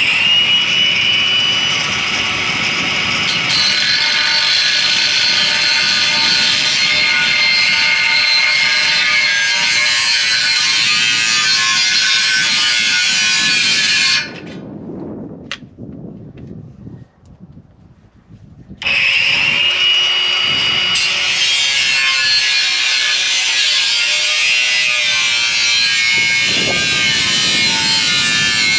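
A power tool cutting down a tent pole section that is too long. It spins up with a short rising whine and cuts steadily for about fourteen seconds, stops for about four seconds, then spins up again and keeps cutting.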